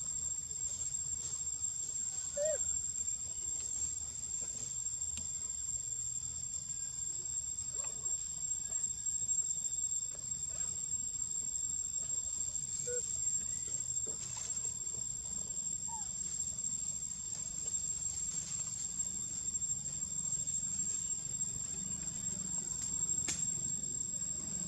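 Outdoor insect drone: a steady, high-pitched buzz that doesn't let up, over a low rumble, with a few faint short chirps scattered through it.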